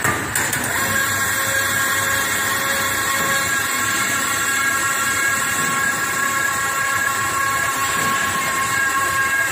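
Dough sheeting machine running: a steady mechanical hum with a whine of several held tones from its motor, gears and rollers, stepping up in loudness just after the start and then holding steady.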